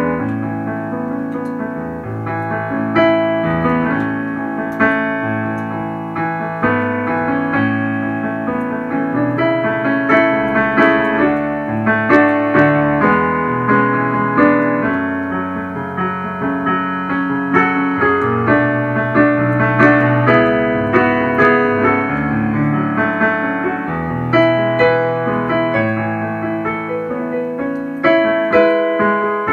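Piano playing a slow hymn tune, sustained chords under a melody, with no singing.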